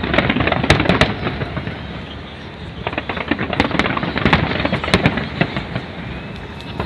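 Large fireworks display: a dense run of bangs and crackling that eases off briefly about two seconds in, then picks up again.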